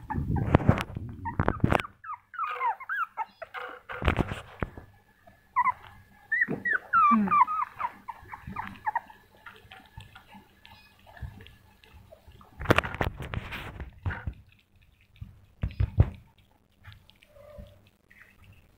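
Young puppies whimpering in short, high, wavering whines, several in a row in the first half. Loud rustles and knocks come in bursts at the start, about four seconds in and around thirteen seconds in, with small scattered clicks later.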